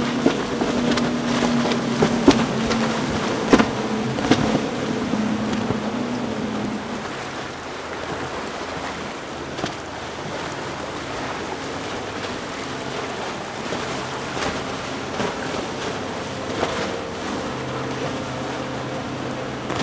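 Outboard-powered center-console fishing boats running fast: a steady engine drone with the rush of spray and a few sharp slaps of the hull on the chop, loudest in the first few seconds. Later the twin Yamaha outboards of a Sea Hunt Gamefish 25 go by at speed, quieter, over the wash of the water.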